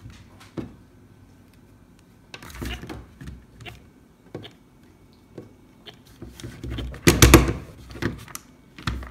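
Plastic clicks, knocks and rattles as the bare gearbox and battery box of a roll-over laughing dog toy are handled and bumped on a wooden table, with the loudest rattle, a quick run of clicks, about seven seconds in.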